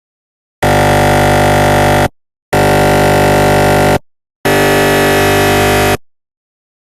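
Recreated GE 1.5 T MRI scanner gradient-sequence sound: three loud, steady blasts of about a second and a half each, separated by short gaps of complete silence.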